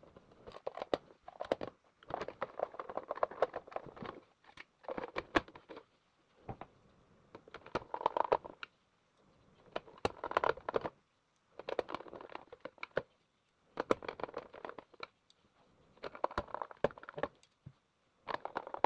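Fast-forwarded handling noise of a Roomba i3 robot vacuum being put back together: rapid clicks, taps and rattles of its plastic housing, circuit board and a screwdriver. It comes in bursts a second or two long with short silences between.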